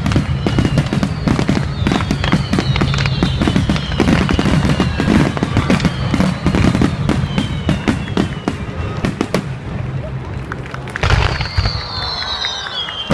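Fireworks going off in rapid succession, a dense run of bangs and crackles. Several whistles glide down in pitch, with a louder falling whistle near the end.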